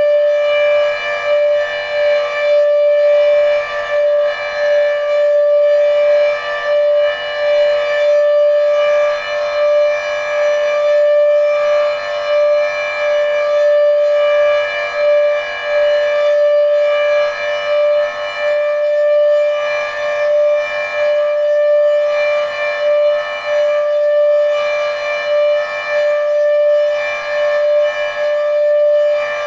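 Federal Signal Thunderbeam RSH-10B electromechanical siren, which has a faulty reflector, sounding its steady Alert tone. The pitch holds level while the loudness rises and falls about every two seconds.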